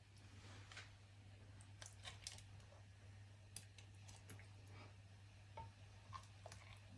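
Near silence: faint scattered clicks and soft wet sounds of kitchen tongs lowering tilapia pieces into a pot of broth, over a low steady hum.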